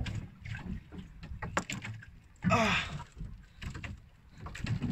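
Irregular knocks and clunks on a small boat's hull and gunwale as a freshly caught emperor fish is handled, with one louder, brief sound about halfway through.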